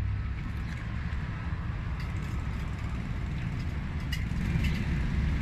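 Steady low rumble of outdoor street background noise, with a few faint ticks.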